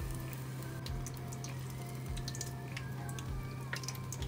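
Battered shrimp tempura deep-frying in hot oil: a steady sizzle with many scattered crackles and pops. Soft background music plays with it.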